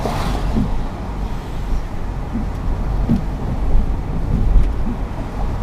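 Car driving on a wet road, heard from inside the cabin: a steady low rumble of road and tyre noise, with the brief hiss of an oncoming vehicle passing just after the start.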